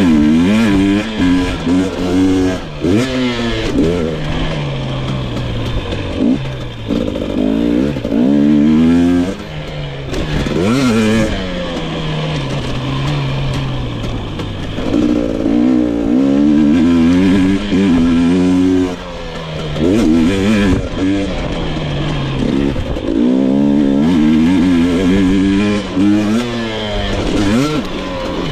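2022 GasGas EX 250 single-cylinder two-stroke dirt bike engine revving up and dropping back again and again as the throttle is worked on the trail. There are brief off-throttle dips about nine and nineteen seconds in.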